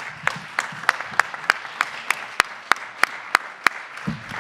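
Audience applauding, with sharp individual claps standing out about three times a second over the steady applause.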